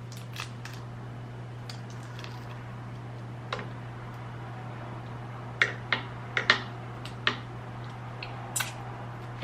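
Close-up eating sounds: wet mouth clicks and smacks while chewing shrimp and rice, scattered and sparse at first, then a quick cluster past the middle, over a steady low hum.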